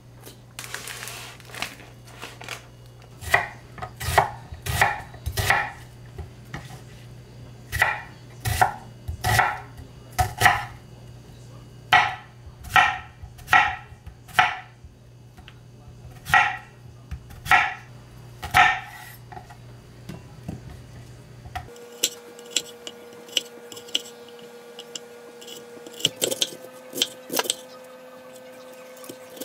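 Chef's knife cutting zucchini and onion on a wooden cutting board, knocking on the board once or twice a second. About two-thirds of the way through, the sound changes to lighter, quicker cuts through a head of cabbage.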